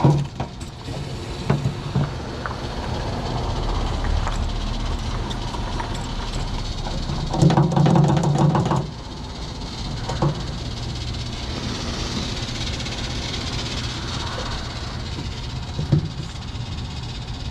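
Trabant 601S air-cooled 594 cc two-stroke two-cylinder engine running steadily, with a louder, higher-pitched stretch about seven and a half seconds in that lasts just over a second.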